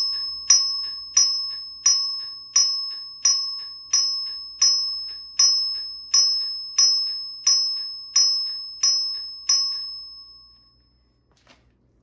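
Simplex 4070 fire alarm chime sounding in march time: a single bright note struck about three times every two seconds, each strike ringing and fading before the next. The strikes stop about nine and a half seconds in and the last ring dies away.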